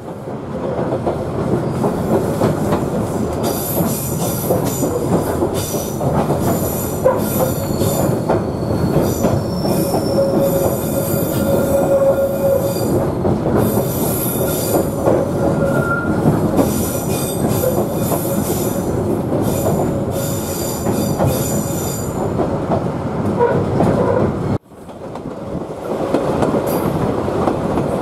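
Queensland Rail 2000 class rail motor running through tight curves, its wheels squealing high against the rails over the steady rumble and clicking of wheels on track. The sound breaks off briefly near the end.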